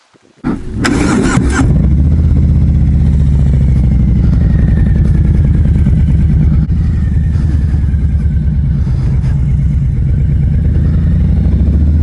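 Harley-Davidson Street Bob's Milwaukee-Eight V-twin engine started about half a second in: a brief starter clatter as it catches, then it runs with a steady, loud, low note.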